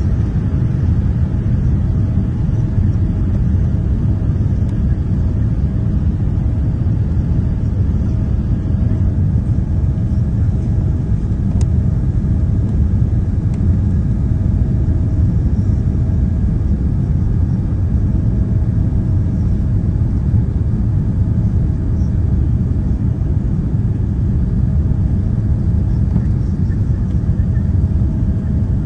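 Steady rumble of airflow and engines inside a Boeing 787 passenger cabin on approach to landing, with a faint steady hum above it.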